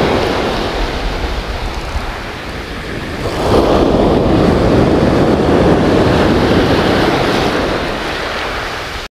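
Sea surf breaking and washing up a beach in a steady rush, swelling louder as a wave surges in about three and a half seconds in.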